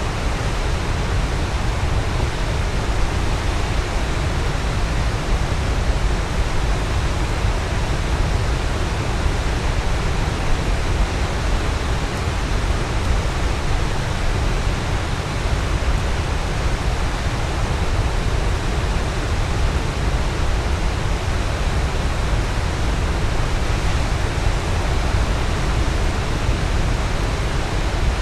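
Waterfall: a steady, unbroken rush of falling water, heaviest in a deep low rumble.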